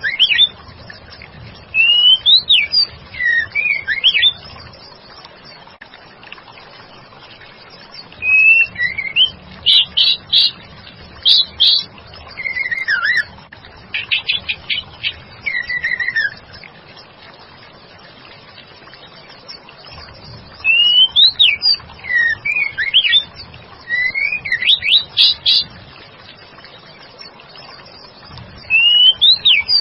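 White-rumped shama calling in bursts of loud, sliding whistled phrases and quick rapid notes, with pauses of a few seconds between the bursts. It is a female's call, used as a lure to draw a reply from a male shama.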